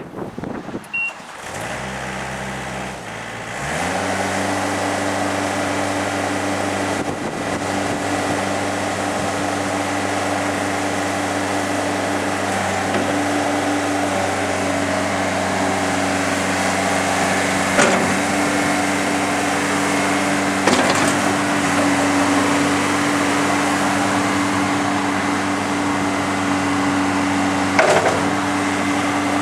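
Komatsu SK815 skid steer loader's diesel engine running, coming up from a low idle to a steady higher throttle a few seconds in and holding there. A few sharp knocks stand out, twice in the middle and once near the end.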